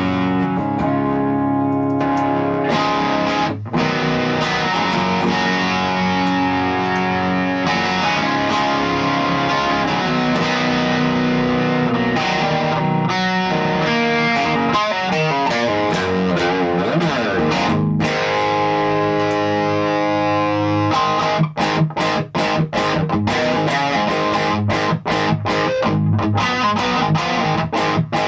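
Electric guitar played through an LPD Pedals Sixty8 Deluxe pedal into a Satellite Neutron amp, picked up by a vocal mic in the room. Held, ringing chords and lines give way about twenty seconds in to a run of short, choppy strummed chords.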